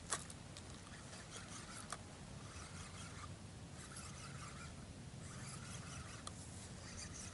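Fishing reel being cranked to wind in line: a faint rasping whir in several spells of about a second each. A sharp click comes at the very start, and lighter clicks follow about two and six seconds in.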